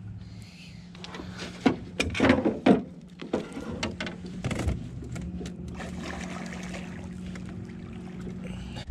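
Handling noises as a freshly caught largemouth bass is lifted and handled aboard a small boat: a few sharp knocks about two to three seconds in, then lighter clicks and rustles, over a steady low hum.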